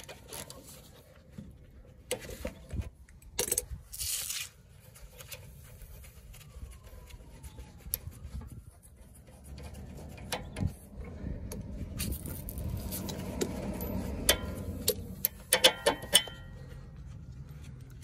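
Ratchet and socket working the bolt out of a sway bar link's lower mount on a Jeep front axle: scattered metallic clicks and clinks, with a quick run of loud sharp clicks near the end. A low rumble sits under the middle stretch.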